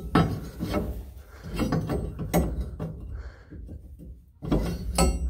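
Irregular knocks and clunks of steel leaf-spring hanger brackets being handled, over a low rumble.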